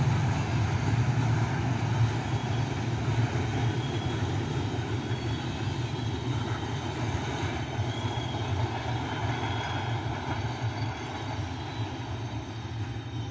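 Passenger train running away down the track, a steady low rumble that slowly fades as it recedes.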